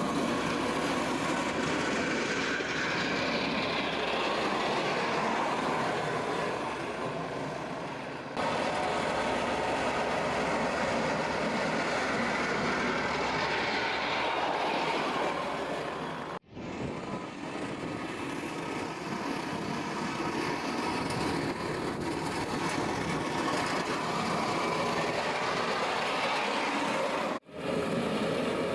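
Skid steer loader running and working with a front blade attachment, a continuous heavy engine-and-machinery noise. It changes abruptly three times, about 8, 16 and 27 seconds in, as one clip cuts to the next.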